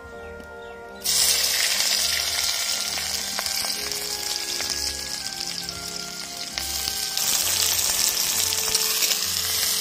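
Sliced onions tipped into hot oil in a wok, setting off a loud sizzle that starts suddenly about a second in and keeps on as they fry.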